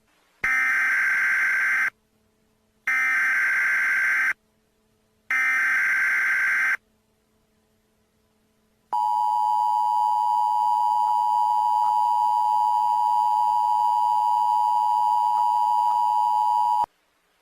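Emergency Alert System tones announcing a new warning. Three short bursts of warbling digital data header, each about a second and a half long with a second's gap between them, are followed by the EAS two-tone attention signal. The attention signal holds a steady, harsh, dissonant pitch for about eight seconds and then cuts off suddenly.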